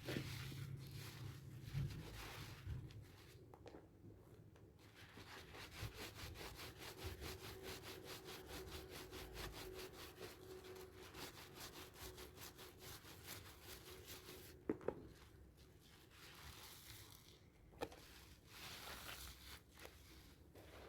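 Hard handmade sea salt and charcoal soap being rubbed to work up a lather: a quiet, fast and even run of rasping rubbing strokes through the middle, looser scraping before and after, and a couple of sharp knocks near the end.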